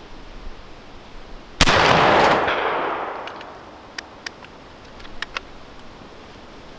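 A single shot from a Swedish M1851 kammerlader capping breech-loading rifle, a percussion-cap black-powder rifle: one sharp report about one and a half seconds in, its echo dying away over about a second and a half. A few light clicks follow as the rifle is handled.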